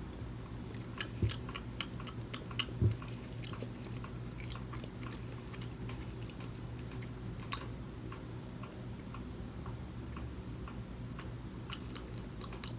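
Close-miked chewing of sushi, with clusters of soft wet mouth clicks and a couple of dull thumps in the first few seconds, over a steady low hum.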